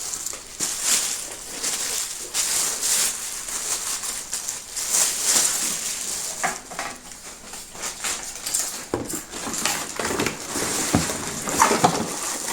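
Plastic packaging rustling and crinkling, with light clicks and knocks of plastic parts being handled as a vacuum cleaner is unpacked.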